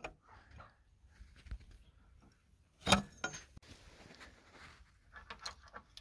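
Faint clinks and rustles of steel parts being handled inside a tractor's oily steering-box housing, with one louder short clatter about three seconds in.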